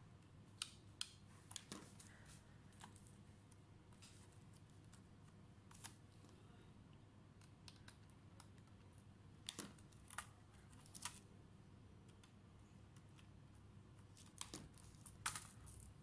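Scattered sharp clicks and taps as screws are backed out of a Dell Inspiron 5301's aluminium bottom cover with a screwdriver and the cover is taken off. The clicks come singly and in small clusters, the loudest about a second in and in the last few seconds, over a faint steady hum.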